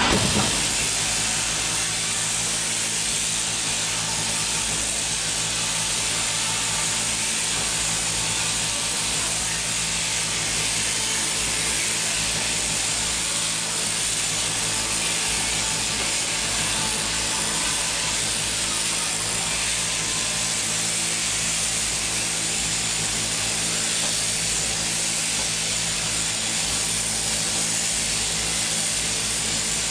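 Sheep-shearing handpiece on its drive rod running steadily through a merino ewe's fleece: a constant machine hum with an even hiss over it.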